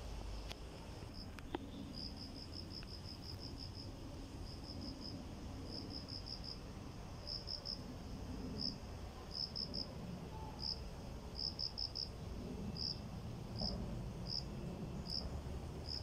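An insect chirping at a high, thin pitch: quick runs of chirps at first, then groups of three or four, slowing to single chirps well under a second apart near the end, over a low steady background rumble.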